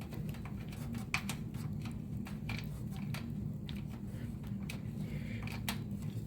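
Light, irregular clicks and taps of a screwdriver and metal hardware as a screw is driven in and tightened, over a steady low hum.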